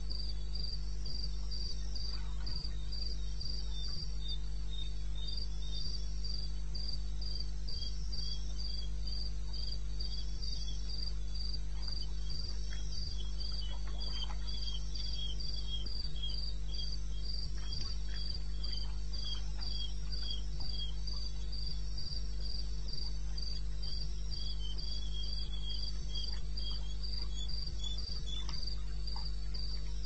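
Crickets chirping at night: one keeps up a steady, fast-pulsed high chirp throughout, while a second, slightly lower chirper joins in runs that come and go. A steady low hum runs underneath.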